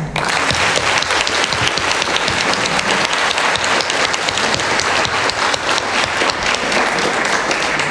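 Audience applauding: many people clapping together in a dense, even stream of claps.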